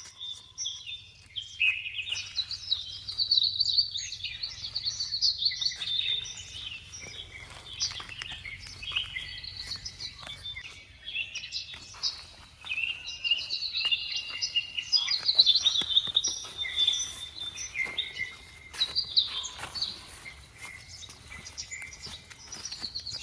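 Many birds chirping and calling at once in a continuous chorus, over a faint low hum.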